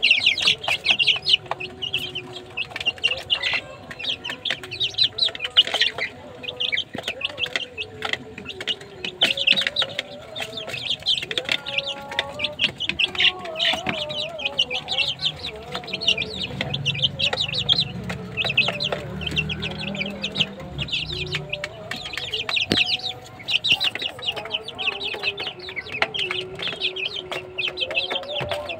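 A flock of month-old mangon chicks peeping constantly, with many short high-pitched cheeps overlapping.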